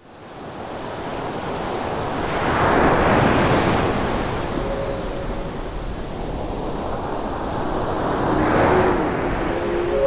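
Ocean surf breaking on a rocky shore, fading in and swelling twice as waves break. A few faint held tones come in around the middle and again near the end.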